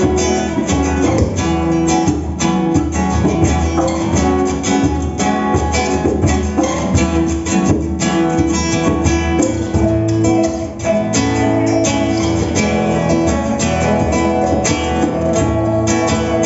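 A plucked-string ensemble of guitar-type instruments, a Filipino kwerdas (rondalla-style) group, plays a continuous melody over strummed chords.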